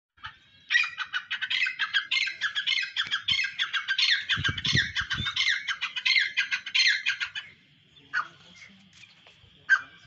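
Gray francolin calling: a fast, dense run of shrill, harsh repeated notes for about seven seconds that stops abruptly, followed by a few scattered single calls. A few low thumps come about halfway through.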